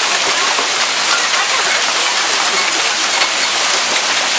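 Hail and heavy rain falling in a storm: a loud, steady hiss of stones and drops striking hard surfaces.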